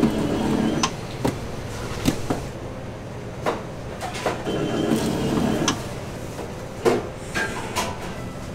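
Automatic gimbap-cutting machine running in two short bursts about five seconds apart, with sharp clicks and knocks in between.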